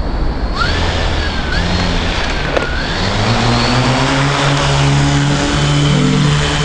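A motor vehicle's engine running amid steady noise, its low pitch rising in steps from about halfway through.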